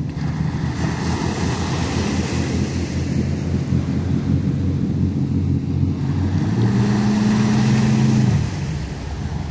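A small boat's outboard motor running. It revs up harder for about two seconds near the end as the boat backs off the sand, then drops back. Wind buffets the microphone and small waves wash on the beach.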